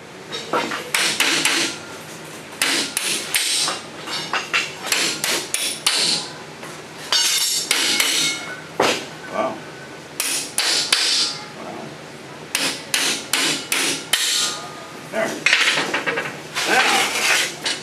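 Hammer striking a steel punch set against the metal hub of a Model T's wooden-spoke wheel: repeated sharp metallic blows in quick runs with short pauses, some ringing briefly, working to drive the hub free so the wheel can be taken apart.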